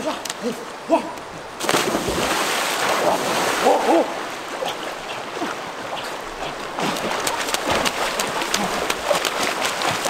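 Two people wading into a river and swimming hard, splashing loudly through the water, with short rising-and-falling calls over the splashing. The heavy splashing starts about two seconds in.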